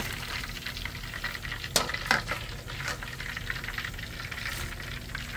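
Smoked chicken wings deep-frying in hot oil, a steady sizzle and crackle, with a few sharp clicks of metal tongs against a foil pan around two to three seconds in.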